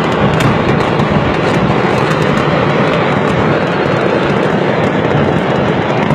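Stock in a burning fireworks shop going off: many rapid crackles and pops over a loud, steady rushing noise.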